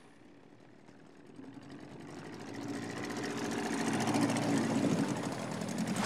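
A motorboat engine running steadily, rising from barely audible to fairly loud over several seconds, as a boat draws near.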